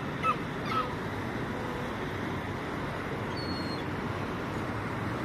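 Steady outdoor city background noise, with a few faint short high calls in the first second and a brief thin whistle near the middle.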